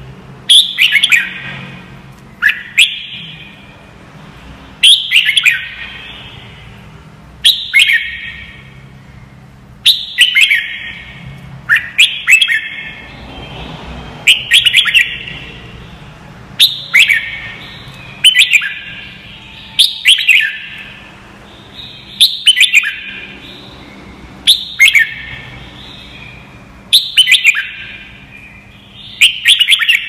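Red-whiskered bulbul singing: loud, short warbled phrases of about a second each, repeated roughly every two and a half seconds.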